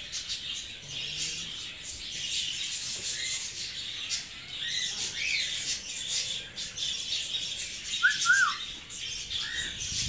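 A mixed colony of red-eyed lovebirds and cockatiels chattering: a dense, shrill twittering with scattered chirps, and two louder rising-and-falling whistled notes about eight seconds in.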